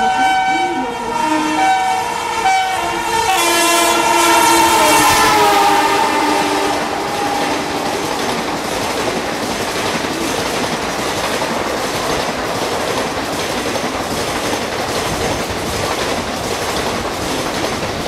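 WCAM-3 electric locomotive's twin-tone horn sounding continuously, switching between two notes, loudest about four seconds in, with the notes sliding lower as it passes. After that the express coaches rush by at speed with a steady clatter of wheels over rail joints.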